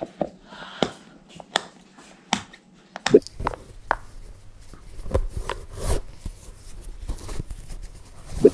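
Latches of a clip-lock plastic food container clicking open one at a time, about one click every three-quarters of a second. Then shoelaces rustle and swish as they are pulled and tied on sneakers, over a low hum, with a sharp knock near the end.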